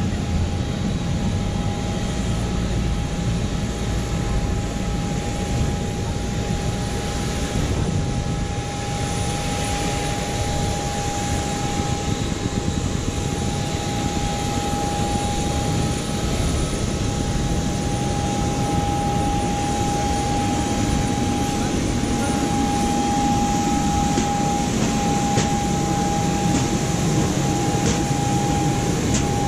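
Steady rushing hum of the air-conditioning and ventilation inside a parked Boeing 737-800's cabin, with a constant high whine running through it.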